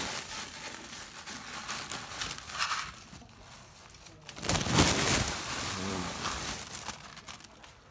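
Plastic sack rustling and crinkling as it is handled, with a louder stretch of rustling about halfway through.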